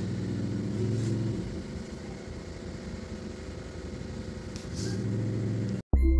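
Steady low-pitched background hum with a faint hiss, cutting off abruptly near the end as a sustained outro jingle begins.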